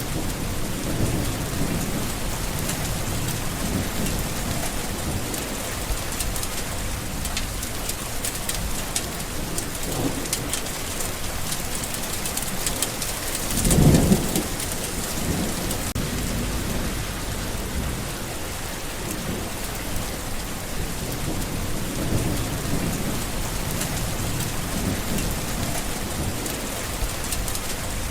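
Steady heavy rain with a patter of drops on a surface, and a low thunder rumble that swells briefly about halfway through.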